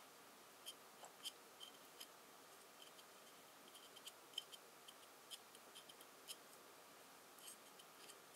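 Near silence with faint, scattered small ticks and light scraping: a finger spreading grease around the edge of a hole in a clockwork starter's housing.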